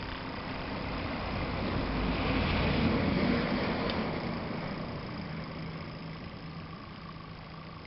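Small model traction engine running steadily as it drives past. The sound grows louder to a peak about three seconds in, then fades.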